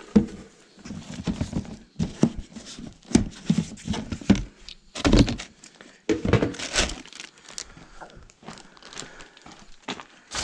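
Tattoo-kit tools and supplies being handled and put away in a clear plastic storage tub: an irregular run of plastic knocks and clatters mixed with crinkling of wipes and paper towel, ending in one louder thunk.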